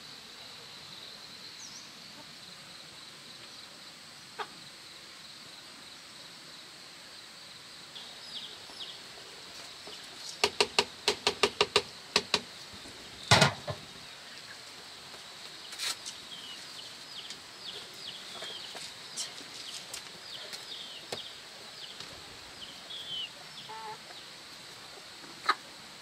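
Chickens clucking: a quick run of about eight sharp clucks about ten seconds in, then a louder single one, with small peeps and scattered clucks after. A steady high-pitched drone sits underneath throughout.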